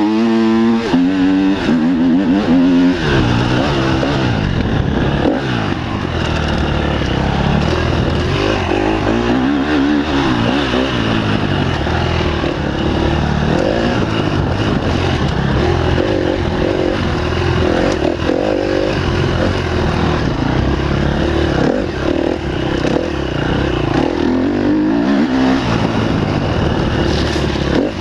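Enduro motorcycle engine under way, revving hard with its pitch climbing in the first few seconds, then running at constantly changing throttle as the rider opens and closes it along the trail.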